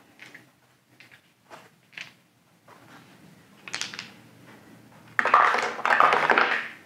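Dice dropped into a small board-game dice tower, rattling down through it and clattering out into its tray for about a second and a half near the end. Before that, a few light clicks and a short clatter of game pieces being handled on a wooden table.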